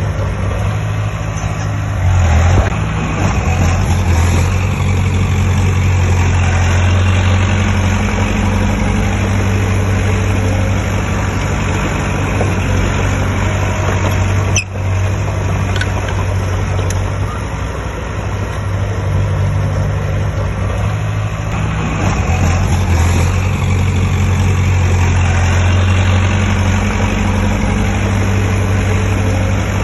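Heavy diesel engine of earth-moving machinery running under varying load, louder and deeper near the start and again in the last third, with a brief break about halfway through.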